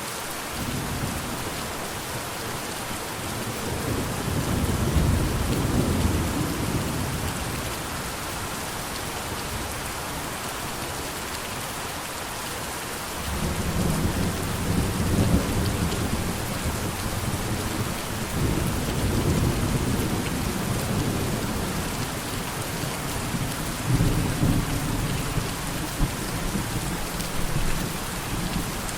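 Steady rain falling, with rolling thunder underneath. One low rumble swells over the first several seconds and fades; another starts about halfway through and rolls on almost to the end, with a few louder peaks late on.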